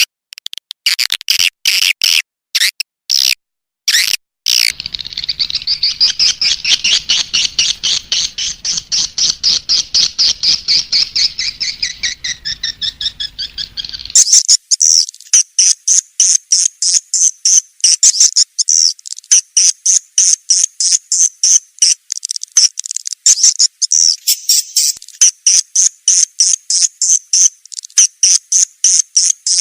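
Swiftlet lure-call recording: rapid trains of high, repeated swiftlet chirps. The first few seconds are stop-start; then comes a dense chirping run over a faint low hum, and about halfway through it changes to a brighter, evenly paced chirp series.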